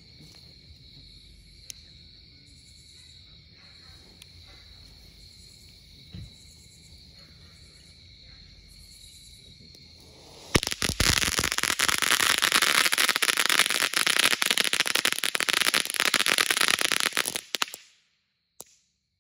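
Steady insect chirping at first; about ten seconds in, a World Class Boom Boom Fountain firework erupts, spraying red sparks with a loud, dense crackling for about seven seconds before cutting off suddenly.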